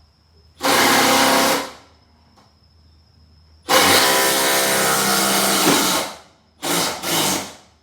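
A 12-volt cordless impact driver running, most likely driving a large screw: one burst of about a second, a longer run of about two and a half seconds, then two short pulses near the end.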